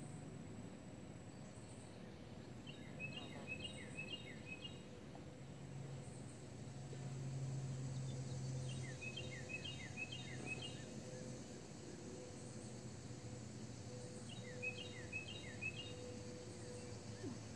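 Faint outdoor ambience: a songbird singing the same short phrase of quick chirps three times, about six seconds apart, over a low steady hum that grows louder for a few seconds in the middle.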